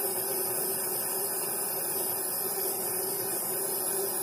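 Small jeweller's soldering torch flame hissing steadily, with a steady hum beneath it, while it gently preheats a thin gold chain for soldering.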